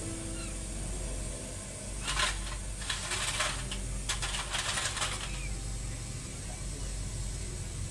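Several short bursts of crinkly rustling, clustered from about two to five seconds in, over a steady low hum.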